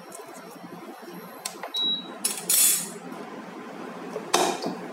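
Cookware being handled on an induction hob as the wok is cleared away: light clicks and a short high beep about two seconds in, a brief loud scraping hiss, then a sharp metallic clink near the end.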